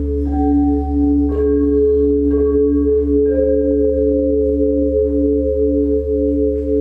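Sound-bath music: sustained, slowly pulsing bell-like tones over a low steady drone, with tubular bells struck about four times, roughly a second apart, in the first half.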